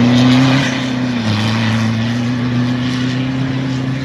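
Toyota Hilux pickup engine pulling at steady high revs as the truck drives off across soft sand toward the dune: one even drone that drops a little in level about half a second in, over a hiss of wind and sand.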